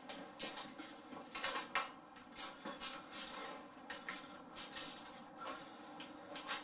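Hand tool working the two 8mm bolts of the clutch lever clamp on a Honda Rebel handlebar: a string of irregular metal clicks and clinks, about one or two a second.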